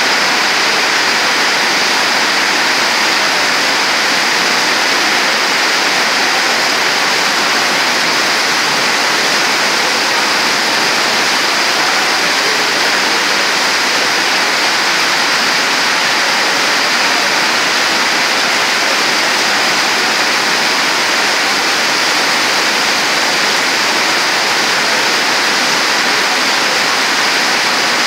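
Torrential tropical downpour: heavy rain pouring onto a flooded paved yard, a dense, steady hiss that holds at the same loudness throughout.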